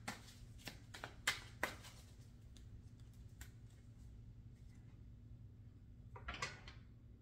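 Tarot cards being shuffled and handled: a quick series of sharp card snaps in the first two seconds, one more about three seconds in, and a brief rustle about six seconds in, over a faint steady hum.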